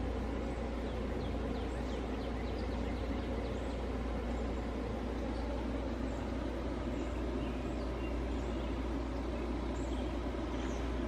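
Steady low rumble of distant city traffic, with faint short bird chirps scattered through it.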